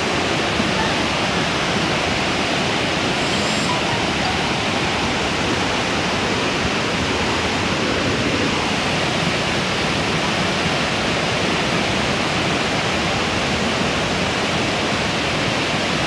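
A river in flash flood: muddy floodwater rushing past in a steady, dense, unbroken noise.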